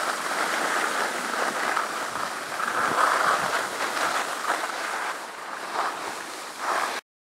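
Wind rushing over the camera's microphone with the hiss and scrape of edges sliding on packed snow, rising and falling in rough surges as the camera rider descends the slope. The sound cuts off suddenly near the end.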